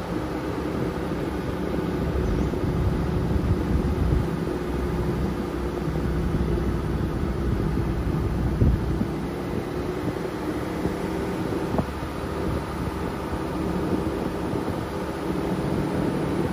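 Steady low rumble of a car's engine and tyres, heard from inside the cabin while driving, with one thump about halfway through.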